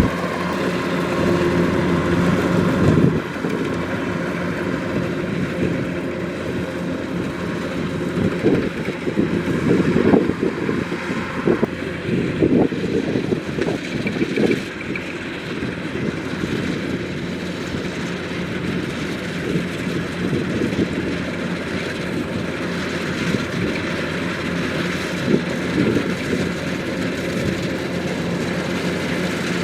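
Kubota DC-105X rice combine harvester running steadily, its engine and machinery going without pause. The level drops a little about three seconds in, and there are irregular louder bursts partway through.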